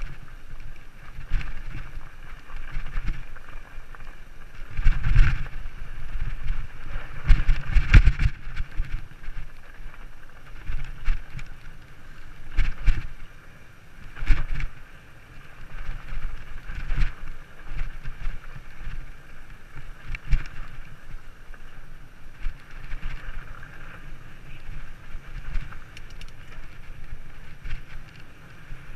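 Mountain bike coasting down a dirt and gravel trail: wind buffeting the rider-mounted camera's microphone over a steady tyre rumble, broken by irregular knocks and rattles as the bike hits bumps, hardest about five and eight seconds in.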